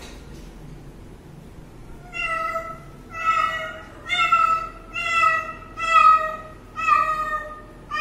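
A kitten meowing repeatedly, starting about two seconds in: six short, high meows, about one a second.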